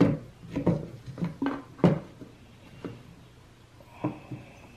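Pliers clicking and tapping against the plastic fuel tank of a Jon Cutter G5800 chainsaw while fishing inside the filler opening for the fuel line. About eight sharp, irregular clicks with short pauses between.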